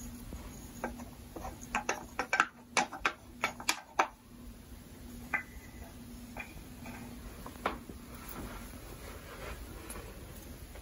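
Small flat wooden animal figures clicking and knocking against each other and against a wooden toy ark as they are handled and set in place: a quick run of sharp taps in the first four seconds, then a few single taps, over a faint steady hum.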